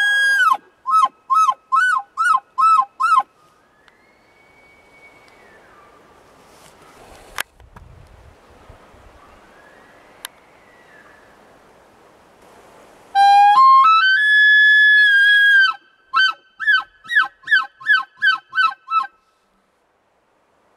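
A loud elk bugle ends in a run of about six quick chuckles. Two faint, distant bugles follow, each rising and falling, and two sharp clicks come between them. Then another loud bugle rises in steps to a high held whistle and breaks into about eight chuckles.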